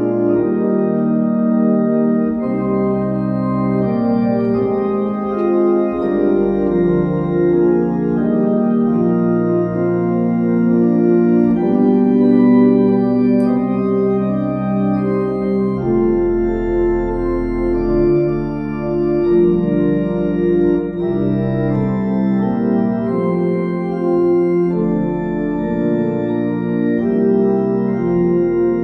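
Two-manual digital organ playing a slow piece in sustained, overlapping chords over held pedal bass notes, a deep pedal note sounding strongly about 16 seconds in. It plays through loudspeakers that have not yet been voiced to the room.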